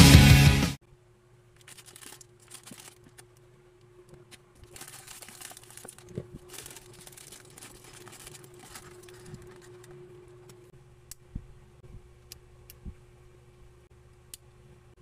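Rock music cuts off about a second in. Then a clear plastic polybag crinkles and rustles as it is opened and the plastic figure parts are tipped out of it. Near the end come a few sharp clicks of the hard plastic parts being handled.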